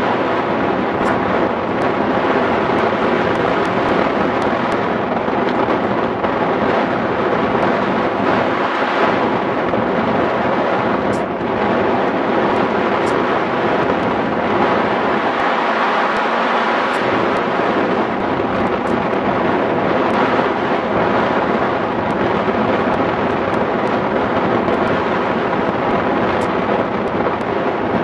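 Steady, loud rush of wind over the microphone of a glider-mounted camera in flight, from the airflow past the hang glider.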